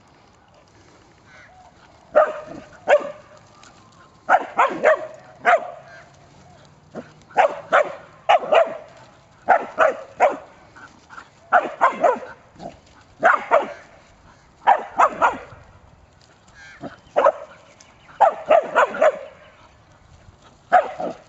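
Kelpie barking in repeated groups of two to four sharp barks every second or two, starting about two seconds in.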